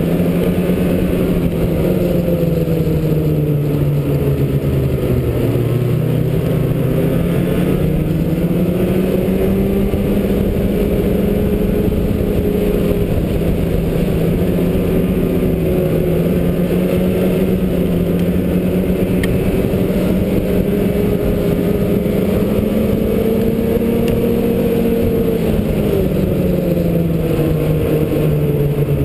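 Snowmobile engine running at trail speed, its pitch dipping and climbing again a few times as the throttle eases off and opens.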